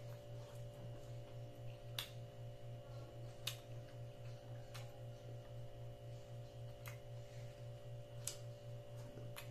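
Quiet eating with the mouth: chewing with about six sharp lip-smacking clicks spaced a second or two apart, over a steady low hum that pulses about five times a second.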